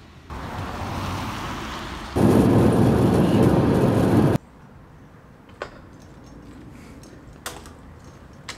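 Loud rushing rain and road noise from a car driving in heavy rain, jumping louder about two seconds in and cutting off suddenly about four seconds in. A few sharp knocks follow in the quieter part.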